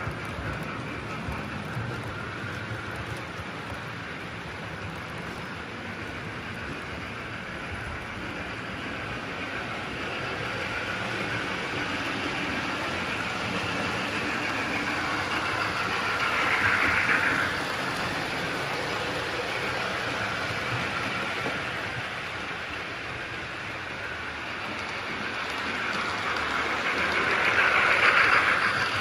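OO gauge model trains running on the track: a steady whir of small locomotive motors and wheels on rail. It swells about halfway through and again, loudest, near the end as a train passes close.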